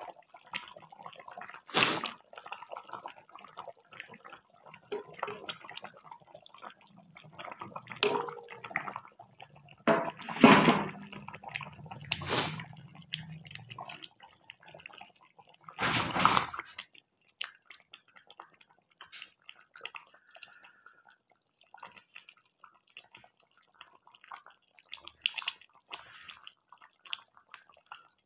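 Chicken curry simmering in a metal pan, with a steady patter of small bubbles and pops. Several louder scrapes and knocks of a steel ladle against the pan come in the first two-thirds.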